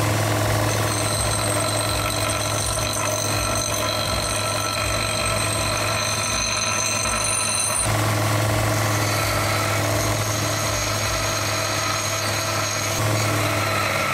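Electric motor of a power tool running steadily with a strong low hum, its tone shifting slightly about eight seconds in.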